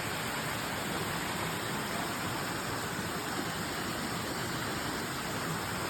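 Creek water rushing with a steady, even noise.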